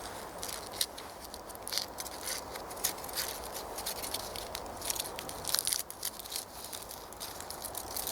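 Tin foil crinkling and crackling as it is unwrapped by hand, in many irregular sharp crackles.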